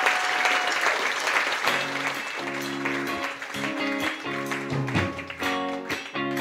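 Audience applause tailing off, then a guitar starts playing chords about a second and a half in.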